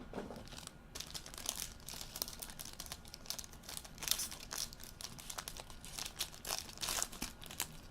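Trading card box packaging being opened by hand: the wrapper crinkling with many irregular crackles and some tearing.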